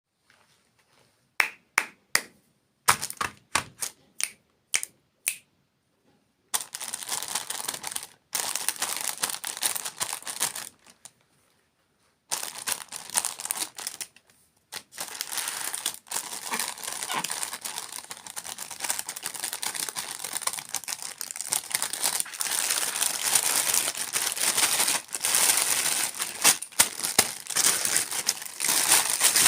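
A run of sharp taps and clicks, then close-up crinkling of plastic packaging that carries on with a brief pause in the middle.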